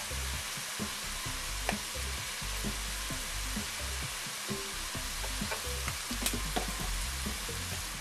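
Sliced mushrooms and onions sizzling steadily in a hot frying pan, with a few faint light ticks.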